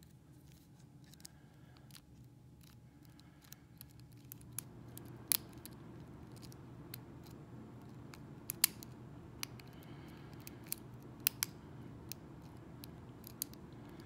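Lock pick working the pins of a hand-held Arrow pin-tumbler lock cylinder: irregular small metallic clicks and scrapes, a few sharper clicks standing out, the clicks of pins setting under tension.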